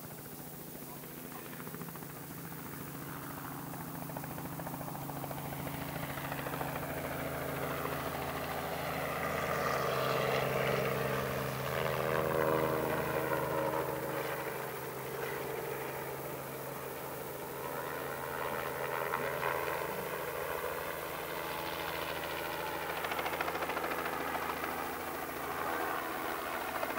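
Light two-bladed helicopter hovering and flying low close by: a steady engine and rotor sound that grows louder towards the middle and swells again near the end.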